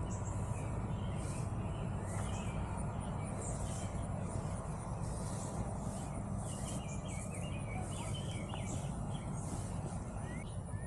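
Outdoor ambience: birds chirping and insects over a steady low hum.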